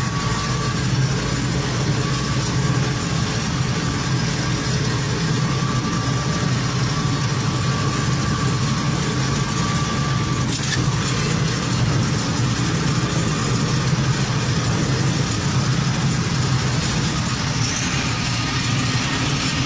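Heavy diesel engine of peat-harvesting machinery running steadily at a constant load, with a faint high whine that comes and goes, and a single light click about halfway through.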